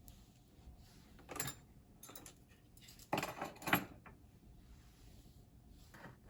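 Light clinks and rattles of small hard objects being handled: a brief one about a second and a half in, then a louder cluster around three to four seconds in.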